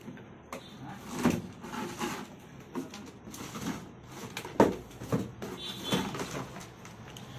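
Intermittent knocks, clicks and rustling from cables and equipment being handled: about half a dozen separate knocks spread out, the sharpest a little past the middle.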